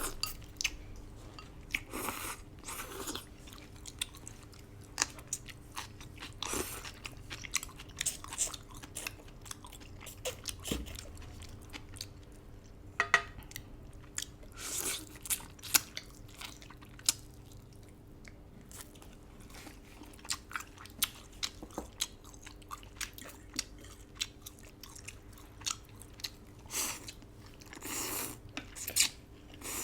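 Close-miked eating of duck noodle soup: chewing and biting with many short wet mouth clicks and a few longer, louder mouthfuls.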